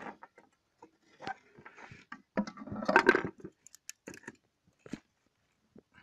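Hard cured fiberglass-and-epoxy moulded pieces knocking and scraping against each other as they are handled: scattered light knocks, with a longer rattling scrape about two and a half seconds in.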